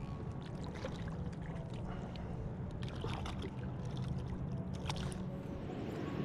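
Water sloshing and splashing around a plastic kayak as a catfish held on a lip grip is lowered into the water, with a few brief knocks and splashes from the handling.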